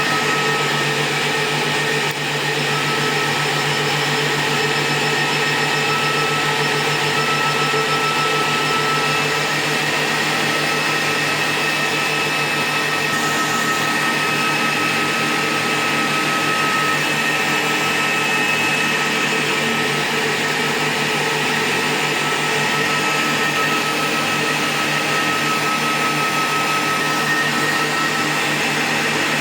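Steady whirring of cooling fans with a constant high whine and hum, as the repaired 2000-watt power supply and its device run on test.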